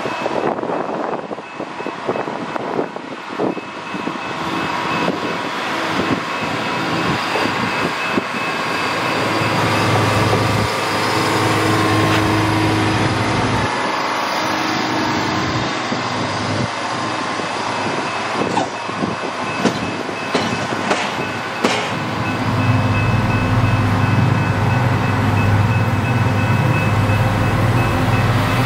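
Engine of a yellow maintenance-of-way track machine running as it travels along the rails toward the listener, a steady low hum that grows louder, most of all in the last few seconds.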